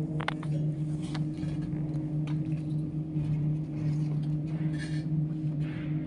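Fasco fan motor of a chilled-water fan coil unit running with a steady hum, with a few faint ticks over it.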